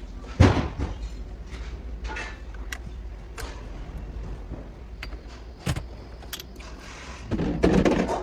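Clunks and sharp clicks of car parts being handled and worked loose during disassembly. There is a loud thump about half a second in, another knock near six seconds, and a longer clattering bang near the end.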